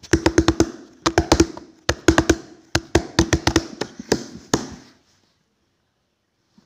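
A baby slapping a wooden tabletop with her palms in quick bursts of several slaps, each slap ringing at the same low pitch. The slapping stops about five seconds in.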